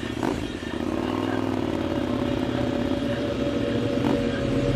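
KTM 990 SMT's V-twin engine running through LeoVince aftermarket exhausts while the bike is ridden, at a steady pace. There is a short click and a brief dip in the sound about a third of a second in.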